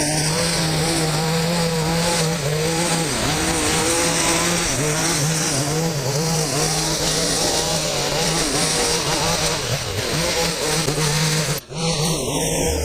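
Small two-stroke engine of a gas hedge trimmer running at a high, steady speed, its pitch wavering slightly as it works; the sound cuts out for an instant near the end.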